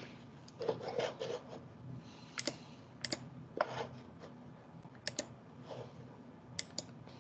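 Light clicks and taps at irregular intervals, about a dozen in all, with faint handling sounds between.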